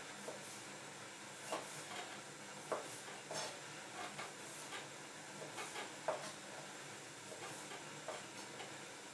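Kitchen knife cutting through cherry tomatoes and tapping on a plastic cutting board: short, irregular soft taps over a faint steady hiss.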